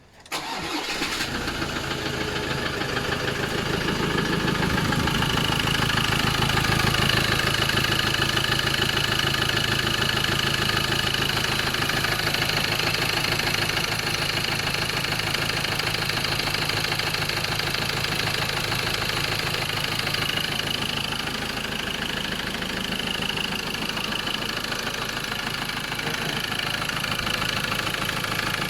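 Ford Ranger 2.2 four-cylinder diesel engine starting at once and then idling, with a rapid, even knocking through the idle that the owner takes for an engine knock.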